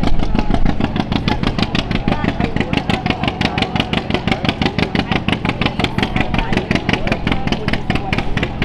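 John Deere two-cylinder tractor engine running slowly, its exhaust making a steady, even popping.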